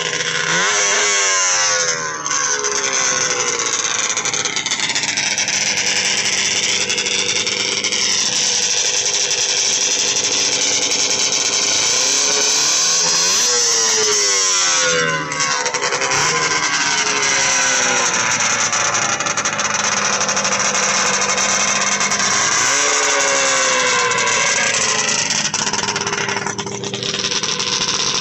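Vintage two-stroke snowmobile engines running loudly, revved up and let back down several times: the pitch falls near the start, climbs toward the middle and drops sharply about halfway through, then climbs again later on.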